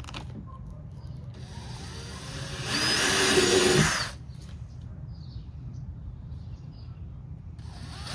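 Power drill drilling the mounting holes for a car's front lip. A softer run is followed by a louder run of about a second and a half whose pitch winds down as the trigger is released. Another run starts near the end.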